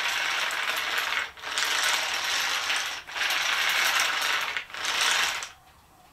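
Wooden toy excavator tracks, made of linked wooden segments, clattering around their wheels as the undercarriage is rolled back and forth by hand. The tracks are running smoothly. The sound comes in strokes about a second and a half long with brief pauses between them, and stops about five seconds in.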